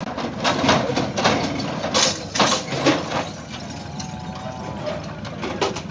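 A vehicle engine idling, with a run of knocks and clatter through the first three seconds and a short wavering tone about four seconds in.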